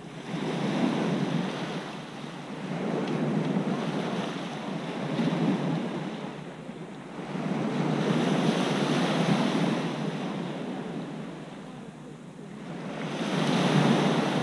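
Small sea waves breaking on a pebble beach and washing back over the stones, swelling and fading every few seconds, the biggest near the end.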